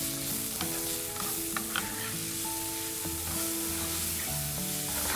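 Chopped tomatoes and onions sizzling in hot oil in a nonstick frying pan as they are stirred with a wooden spatula, with a few short scrapes of the spatula against the pan.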